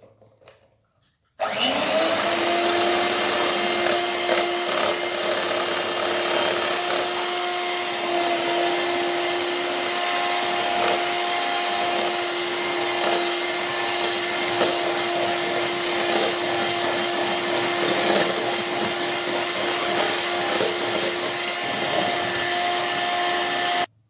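Electric hand mixer switched on about a second and a half in, its beaters whisking a thin egg, sugar and oil batter in a bowl; the motor runs at a steady speed with a constant whine, then is switched off just before the end.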